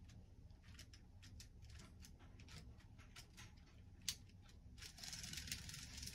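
Near silence with faint, irregular clicks and a sharper click about four seconds in, then a faint hiss that swells about five seconds in: a model train running on its track, out of view.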